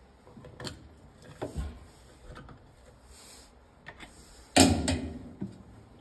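Scattered light clicks and taps of pliers and plastic washer-agitator parts being handled, with a louder knock or clatter about four and a half seconds in.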